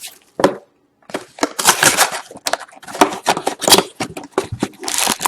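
Crackling and tearing of a sealed trading-card box being opened: the wrapper crinkling and ripping and the cardboard handled, in irregular sharp bursts with a short pause about a second in.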